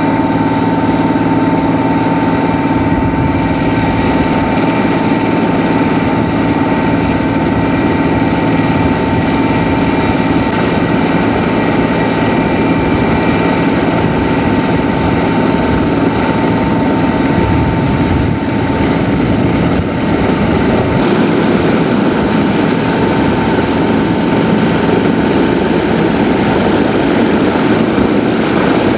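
Lockheed Super G Constellation's Wright R-3350 radial piston engines running up during engine start, a loud steady propeller-engine rumble with a steady whine above it. The sound grows fuller and rougher in the last several seconds.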